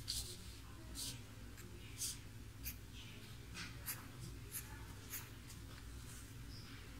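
Faint, irregular scratches and taps of a pen tip on a paper sheet, over a low steady room hum.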